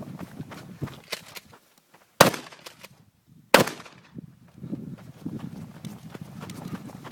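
Two gunshots about a second and a half apart, the loudest sounds here. Between and around them run footsteps and the clatter of gear as the shooter moves through the course.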